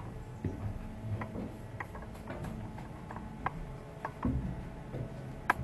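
Footsteps climbing a tower staircase: irregular knocks and clicks with a few dull thuds, the sharpest click near the end.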